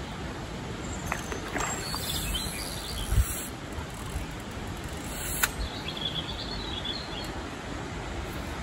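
Steady outdoor background noise with a low rumble, faint bird chirps about two-thirds of the way through, and a single dull thump about three seconds in.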